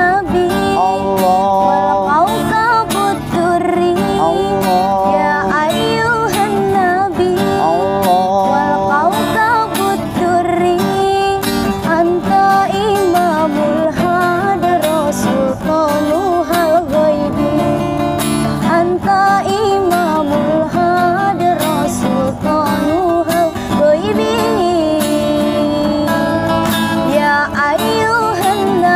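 A woman singing a sholawat (Islamic devotional song) in a wavering, ornamented melody, accompanied by a strummed acoustic guitar.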